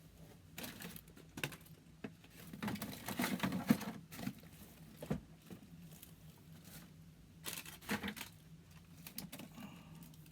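Toy packaging being handled: rustling and crinkling of plastic and cardboard with scattered clicks and taps, busiest about three seconds in and again near the end.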